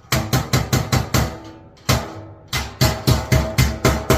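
Rapid hand-hammer blows on galvanized sheet metal as the seams of a duct fitting are knocked together, about five ringing strikes a second. There are two runs, with a single blow in the pause about two seconds in.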